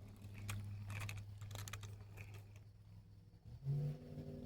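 Several light clicks and taps over a steady low hum, followed near the end by a low, voice-like sound.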